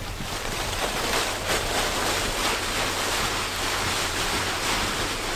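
Dry fallen leaves rustling and crunching as they are walked through: a steady rushing noise with faint scattered crackles.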